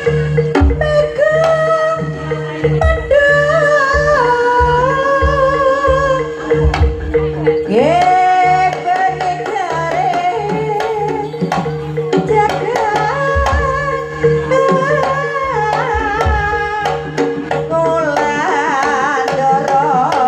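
Javanese jaranan gamelan music: kendang drum strokes under a wavering, sustained melody line with singing, over a steady ringing tone. About eight seconds in, the melody swoops up to a new high note.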